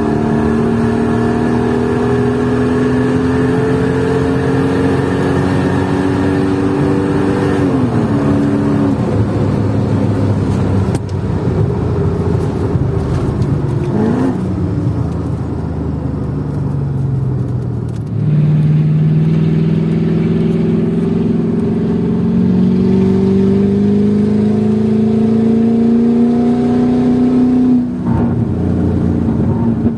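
Supercharged 5.4-litre V8 of a Mercedes E55 AMG W210, heard onboard through a modified exhaust (secondary cats deleted, X-pipe, resonator delete), accelerating hard. The engine note climbs steadily and drops at upshifts about 8 and 14 seconds in, then eases off and falls lower. It pulls up loudly again from about 18 seconds in and climbs to another shift near the end.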